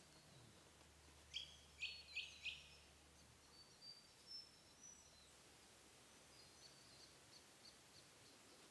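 Faint bird calls over near silence: four quick chirps about a second and a half in, followed by scattered thin, high whistling notes.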